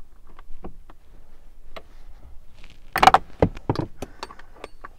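Plastic dash trim and hand tools clicking and knocking as the instrument cluster's screws are worked on, with a quick run of louder clacks about three seconds in.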